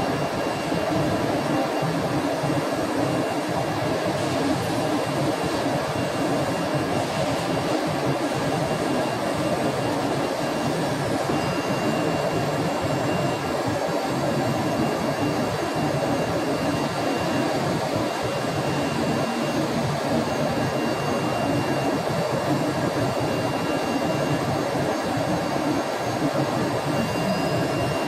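AccTek AKM2130 automatic-feeding ATC CNC router running, a steady rushing machine noise. A thin high whine joins in about twelve seconds in.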